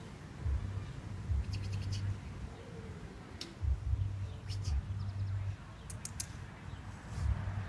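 Low rumbling on the phone's microphone coming and going in bursts, with several short runs of faint, high chirps.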